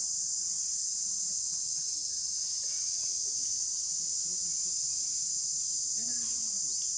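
Steady, unbroken high-pitched insect chorus, even in level throughout, with faint low sounds beneath it.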